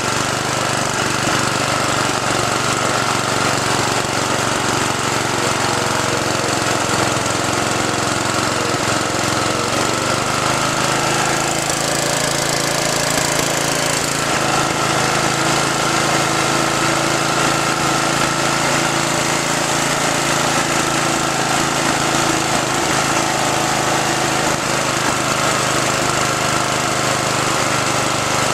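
Craftsman 12 hp riding lawnmower engine running steadily under load as the mower drives along at speed. Its note shifts slightly about ten seconds in.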